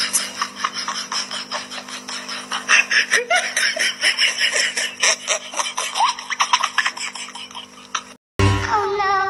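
A person's breathy giggling laughter, quick puffs with a few short squeaky rises in pitch, over a steady low hum. It cuts off about eight seconds in, and a short snatch of music follows.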